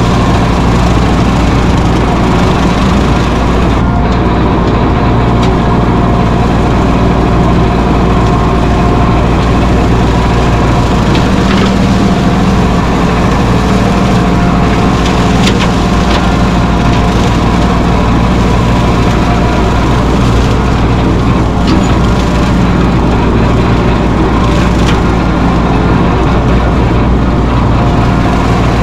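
Mahindra 1626 compact tractor's three-cylinder diesel engine running steadily, with a few sharp cracks of breaking brush and wood.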